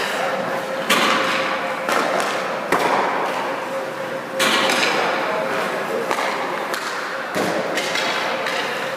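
Ice hockey rink sounds: several sharp thuds and clacks of pucks, sticks and skates, echoing in the large rink, over a steady hiss and a faint steady hum.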